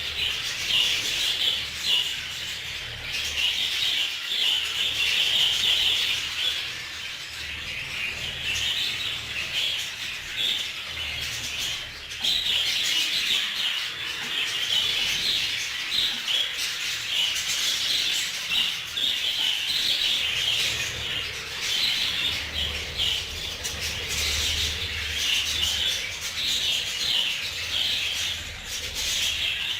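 A colony of many budgerigars chattering and chirping at once, a dense continuous twitter of overlapping calls.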